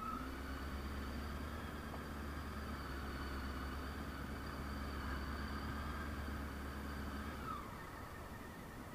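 Honda CB600S Hornet's inline-four engine idling at a standstill in traffic: a steady low hum that fades out about seven and a half seconds in.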